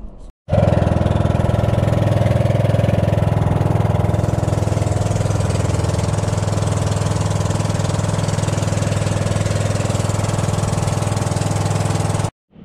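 The outrigger fishing boat's engine running at a steady, unchanging speed while underway, loud and close. It cuts in abruptly about half a second in and cuts off just as abruptly near the end.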